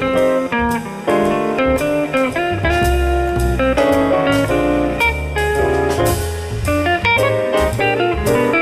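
Instrumental music: a melody of quick, clearly struck notes over a moving bass line, with no singing.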